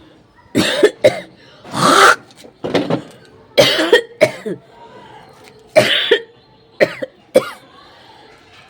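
A person coughing and hawking in a run of loud, forced bursts, about nine in all, some in quick pairs, spread over about seven seconds.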